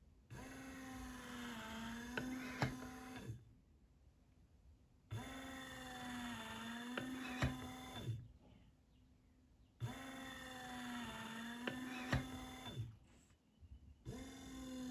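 Motorised bag-valve-mask ventilator cycling: a small electric motor whines for about three seconds as it squeezes the bag, with a few sharp clicks near the end of each stroke, then pauses for about a second and a half. The cycle repeats about every five seconds, and a fourth stroke begins near the end.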